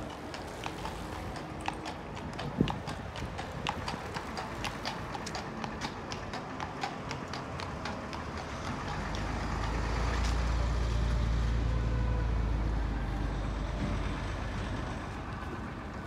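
Hooves of a carriage horse clip-clopping on an asphalt road: a steady run of sharp clops that thins out after about eight seconds. A low rumble swells in the middle and dies away.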